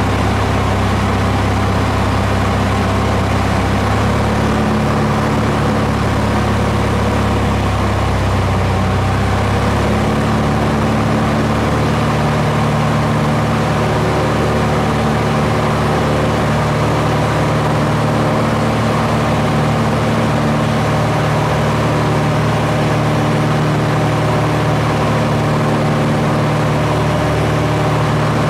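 Steady engine drone of the aircraft doing the filming, its tone shifting slightly about four and ten seconds in.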